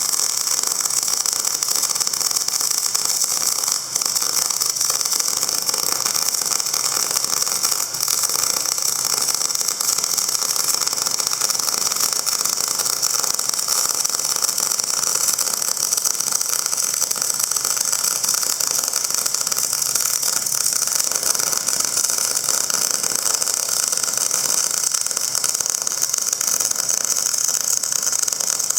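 Steady mechanical running noise, an engine or motor running without change, with a strong hiss over it.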